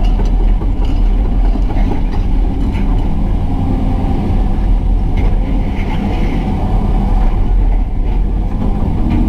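Excavator's diesel engine running steadily, with a faint wavering whine over it and a few light knocks.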